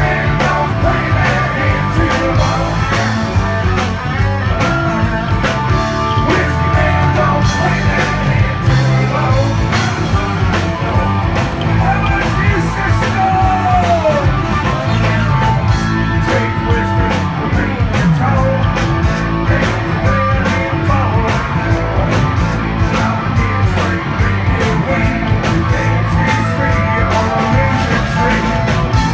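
Live southern rock band playing at full volume through a stage PA: electric guitars, bass and drums on a steady beat, with a man singing the lead vocal.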